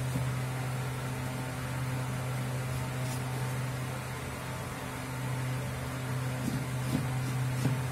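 Large kitchen knife dicing onion on a cutting board: a few faint taps about three seconds in and a cluster of taps near the end, over a steady low hum.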